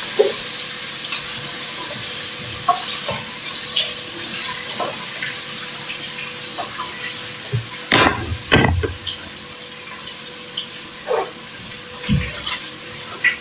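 Food sizzling in a frying pan on a gas stove: a steady hiss with scattered small crackles, broken by a couple of louder knocks about eight seconds in and another near the end.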